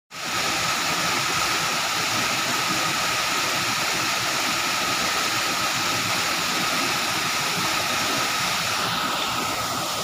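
Waterfall plunging into a rock pool: a steady, unbroken rush of falling water.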